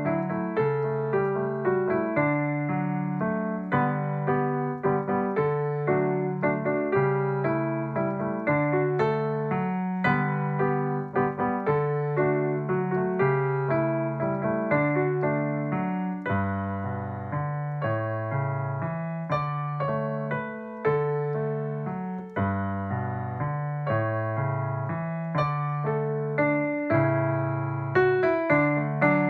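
Piano playing a simple beginner's tune in D major, note by note over a bass line and chords. It moves into a middle section with a lower bass about halfway through, then returns to the opening tune near the end.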